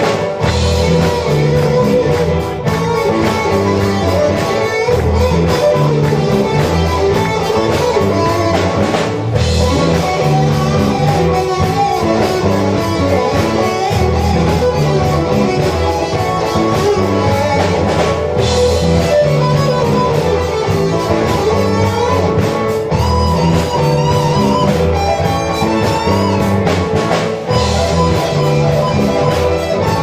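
Live rock band of electric guitars and a drum kit playing a song at full volume. There are steady drum hits under sustained, bending guitar lines.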